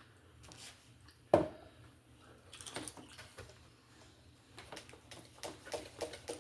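Tableware at a meal: one sharp knock a little over a second in, then scattered light clicks and taps of cutlery on plates.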